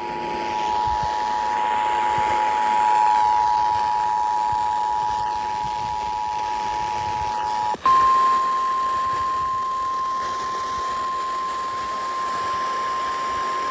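Emergency Alert System attention signal over the radio: two steady tones sounding together (853 and 960 Hz) over a background hiss, cutting off about eight seconds in. It is followed at once by a single steady, slightly higher tone, the 1050 Hz NOAA Weather Radio warning alarm tone.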